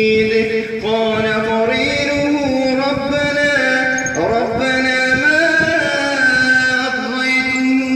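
A man's voice chanting Quranic recitation in melodic tajweed style, holding long drawn-out notes with ornamented turns. The pitch steps up about two seconds in.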